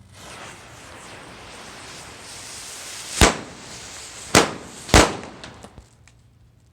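Lit firecracker fuses hissing for about three seconds, then three sharp, loud firecracker bangs about a second apart, followed by a few small pops.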